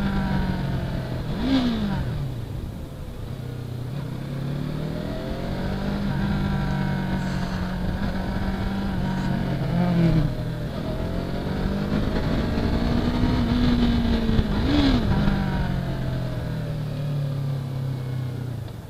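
Yamaha R3 parallel-twin engine running while riding, its note rising and falling with the throttle. There are two quick rises and falls in pitch, one about a second and a half in and one near the end, after which the note settles lower as the bike slows. Wind noise runs underneath.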